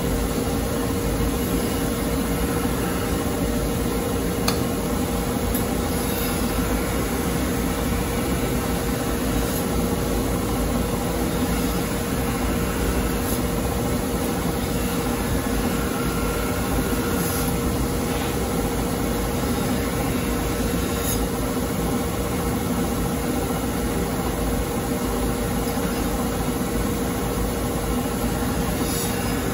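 Large bench grinder running with a steady hum, its wheel spinning while a deba knife blade is held and worked against the wheel face, with a few faint brief scrapes of steel on the wheel.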